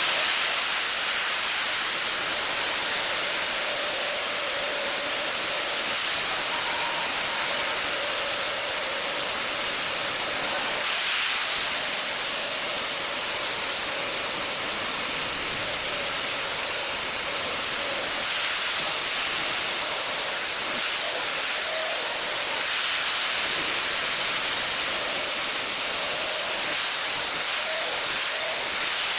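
Electric power tool running steadily with a loud hiss and a high whine, the pitch dipping briefly a few times as it is pressed into work, taking material off a wooden spear shaft.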